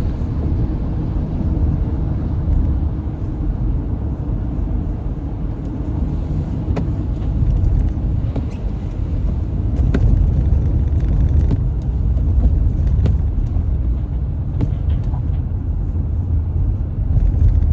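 Steady low rumble of a car driving on wet, snowy city roads, heard from inside the cabin, with a few faint clicks now and then.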